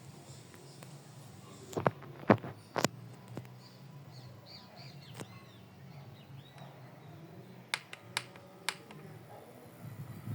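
A handful of sharp clicks and knocks over a low steady hum, with faint bird chirps a few seconds in.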